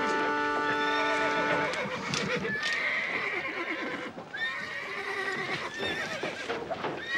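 Cartoon horse neighing and whinnying several times as a harnessed carriage mare rears in panic, with hooves clattering and knocking. A held music chord rings out for the first second and a half.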